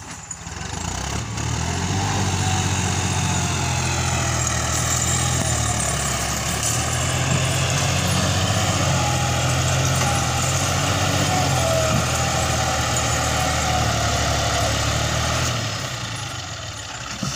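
John Deere diesel tractor engine working at full load, hauling a heavily loaded sugarcane trolley through soft field soil, the load heavy enough to lift the tractor's front wheels. The engine swells to a loud, steady labouring note about a second and a half in, holds there, and eases off near the end.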